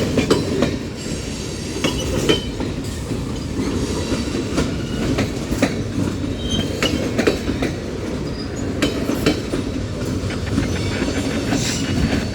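Union Pacific mixed freight train's flat cars rolling past: a steady rumble of steel wheels on the rails, with irregular clacks over the rail joints and a few brief, high wheel squeals.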